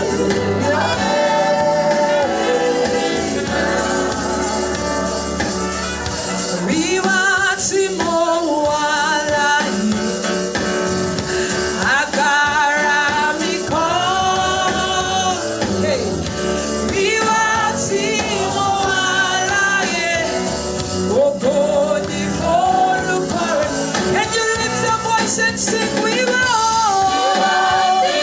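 Live gospel worship music: voices singing long, drawn-out melodic lines over sustained instrumental accompaniment.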